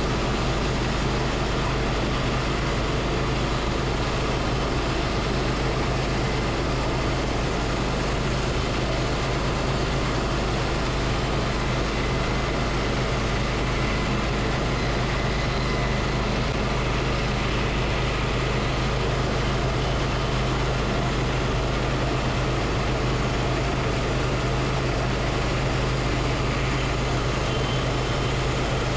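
Engine of a homemade band sawmill running steadily at a constant speed, a loud, unbroken drone with a strong low hum.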